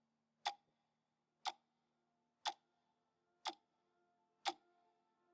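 Faint, sharp ticks, one a second, over faint held tones.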